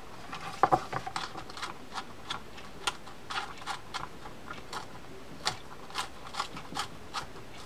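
Irregular light clicks and taps, a few a second, from a Shimano Corsair 400 baitcasting reel being worked by hand, with the sharpest click about half a second in.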